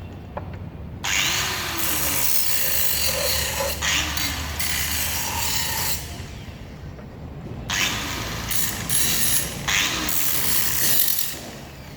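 A hand or power tool cutting or scraping through material, in two long spells of loud rasping: one starts about a second in and runs about five seconds, the second starts near eight seconds and stops about a second before the end.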